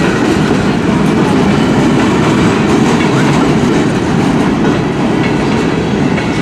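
CN freight train cars rolling past, their steel wheels running steadily over the rails.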